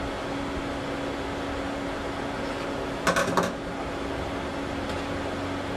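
Steady mechanical hum with one steady tone under it; about three seconds in, a quick cluster of sharp metallic clicks as snap ring pliers work against parts inside an automatic transmission case, then a faint single click.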